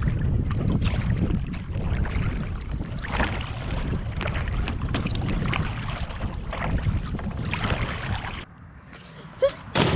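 Wind rumbling on the microphone with water splashing and sloshing, which drops away abruptly about eight and a half seconds in.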